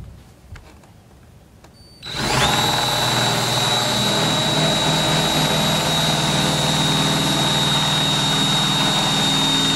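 Power drill starting about two seconds in and running steadily with a high whine, boring a corner hole through the van's sheet-metal roof.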